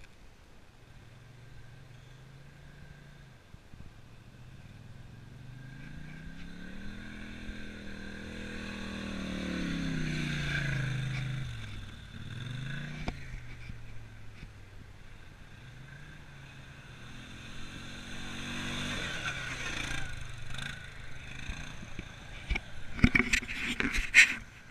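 Quad bike (ATV) engines coming up a gravel track. One climbs in pitch and loudness as it nears, is loudest about ten seconds in, then drops sharply in pitch as it passes close by. A second quad's engine rises again later, and a few loud knocks come near the end.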